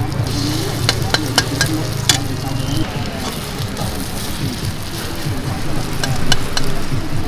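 Thai-style omelet frying in hot oil in a steel wok, sizzling steadily, with a metal slotted spatula clinking and scraping against the wok a few times about a second in and again near the end as the omelet is turned and broken up.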